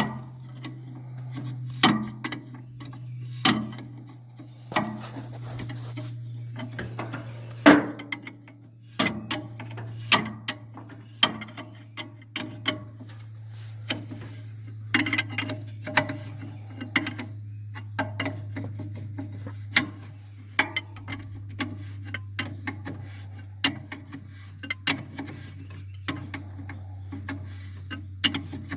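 An engine running steadily at idle, its low hum sinking slightly in pitch, with irregular sharp clicks and knocks over it.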